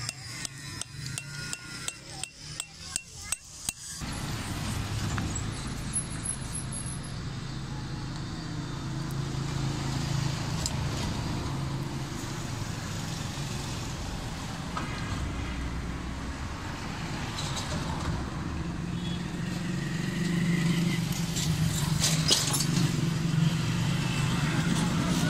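Metal chisel tapping on the inside of a stone mortar being hand-carved, about three sharp taps a second. After about four seconds it gives way to steady street noise of passing traffic with a low hum.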